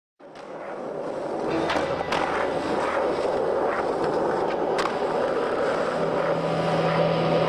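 Skateboard wheels rolling on smooth concrete, fading up from silence just after the start, with a few sharp clacks of the board.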